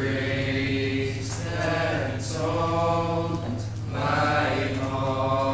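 A small group of young male voices singing a cappella in a church, holding long notes, over a steady low hum.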